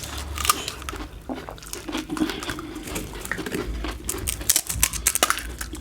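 Eating pani puri: the crisp hollow shells crunch and crackle in many quick, sharp bursts.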